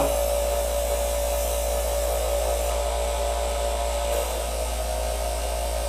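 Chef's Choice 110 electric knife sharpener running steadily while a knife is drawn through its finest, final-edge stage: a motor hum with hardly any grinding sound, since little metal is being taken off. A thin steady tone drops away about four seconds in.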